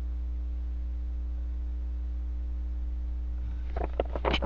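Steady electrical mains hum. About three and a half seconds in, a quick run of clicks and rattles sets in as small toy animal figures are handled and picked through.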